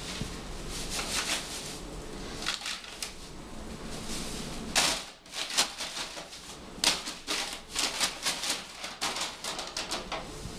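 Brown paper bag crinkling and crackling as it is pawed and batted about on a tile floor, in irregular bursts of sharp clicks. The loudest bursts come about five seconds in and again around seven seconds.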